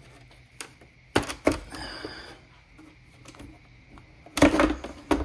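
Audi RS6 plastic engine cover being pulled off its mounts: two sharp knocks about a second in, a short rubbing after them, then a louder cluster of knocks and pops near the end.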